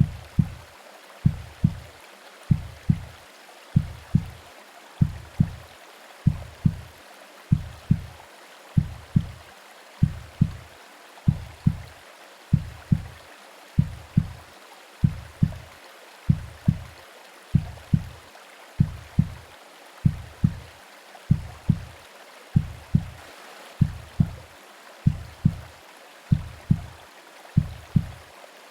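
Simulated womb heartbeat: a steady lub-dub double thump, a little faster than one beat a second, over a continuous hiss of white noise and rain.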